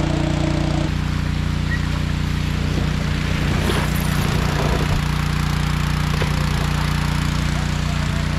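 Small engine running steadily at constant speed, most likely the pump that feeds water through a hose onto the slide.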